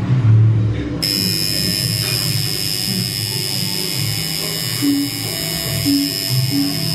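Background music with a steady beat, over which a tattoo machine's steady high buzz starts about a second in and runs on as it inks the skin.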